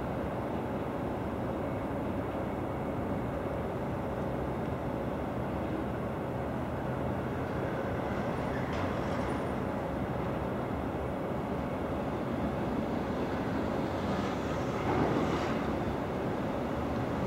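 Gakunan Railway 7000-series electric railcar running slowly along the track, a steady rumble with a faint hum. Brief higher-pitched noises from the wheels and track come about halfway through and again near the end.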